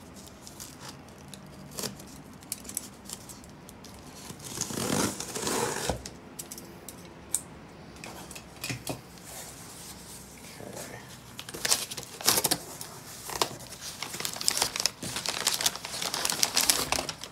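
Scissors slicing along the packing tape on a cardboard box, a long scraping run about five seconds in. Then the cardboard flaps are opened and crumpled packing paper rustles and crinkles as it is pulled aside, busiest in the last few seconds.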